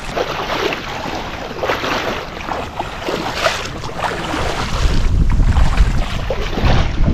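Water splashing and sloshing around the legs of a person wading through shallow water, in a run of quick uneven splashes. Wind buffets the microphone with a low rumble that grows stronger about two-thirds of the way in.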